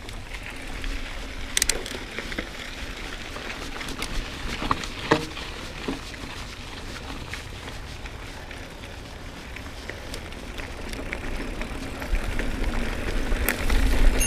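Mountain bike rolling over a dirt singletrack: tyre noise on dry dirt with scattered clicks and rattles from the bike. Wind rumble on the microphone grows louder near the end.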